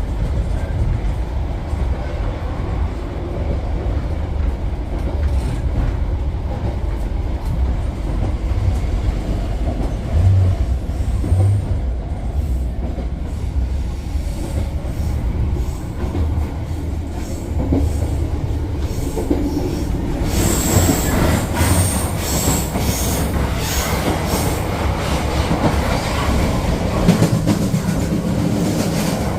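Passenger train running on the rails: a steady low rumble throughout, growing into louder clattering and high wheel screeching about twenty seconds in.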